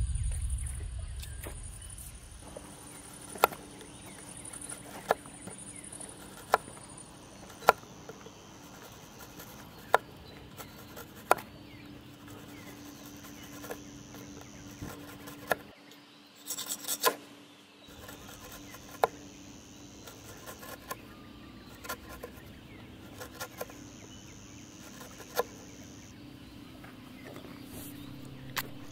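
A knife blade shaving thin curls off a split piece of firewood, a low scraping broken by a sharp click every second or two.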